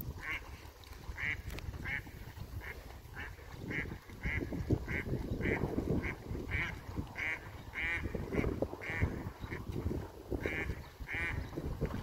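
A duck quacking over and over, short calls about one and a half a second, over a low rumble of wind on the microphone.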